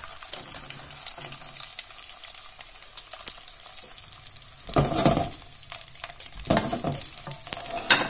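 King prawns frying in hot olive oil with chili and garlic in a wok, the oil sizzling and crackling steadily. Louder bursts of sizzle and knocking come about five and six and a half seconds in.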